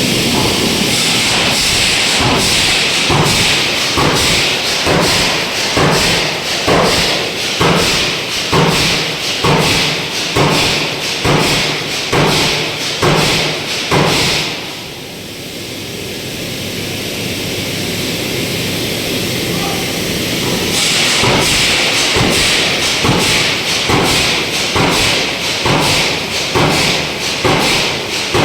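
Forging hammer blows on metal in a steady rhythm of about two a second, over a steady hiss that drops away for several seconds midway and then comes back.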